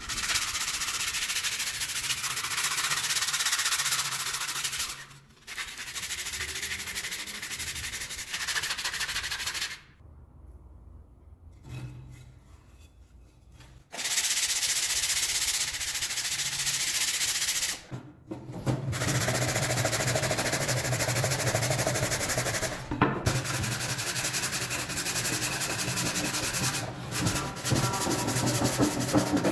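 Wooden slingshot-rifle parts being sanded with a hand-held round sanding pad: long stretches of rapid, scratchy rubbing strokes, broken by short pauses and a quieter spell of a few seconds in the middle.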